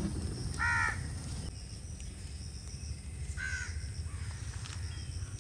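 A crow cawing twice, once about a second in and again about three and a half seconds in.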